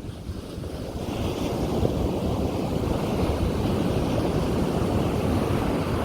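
Ocean surf on a beach: waves breaking and washing in as a continuous rush that swells about a second in and stays loud, with a low rumble beneath and some wind on the microphone.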